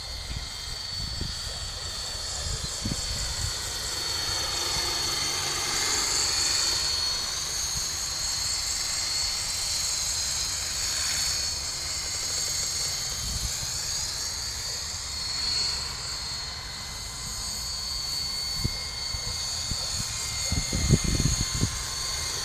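ramo COAX2012 electric coaxial RC model helicopter running in flight: a steady high whine from its electric motor and drive over the whoosh of its two contra-rotating three-blade rotors, the pitch wavering slightly. A few low rumbles of wind on the microphone near the start and near the end.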